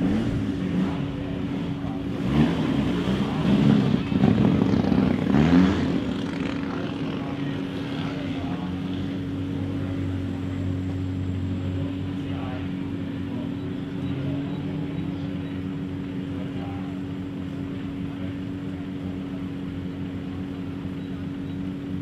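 Rally car engines idling with a steady drone, with a few revs and blips in the first six seconds, then settling to an even idle.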